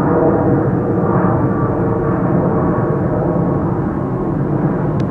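Airplane passing overhead, its engines giving a loud, steady drone with several held tones.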